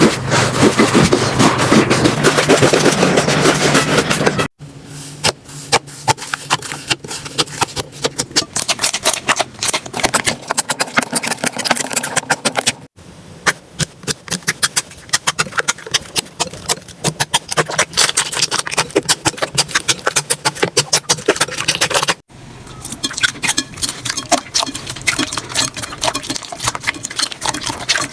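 Slime being squeezed, pressed and poked: dense, irregular clicking, crackling and popping. It comes in four stretches separated by sudden cuts, the first louder and fuller than the rest.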